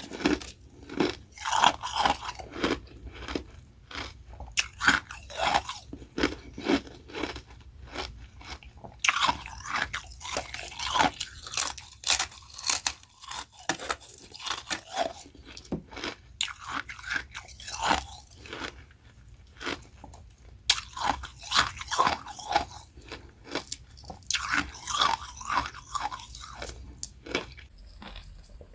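Ice being bitten and chewed close to the microphone: repeated crunching in clusters with short pauses between bites.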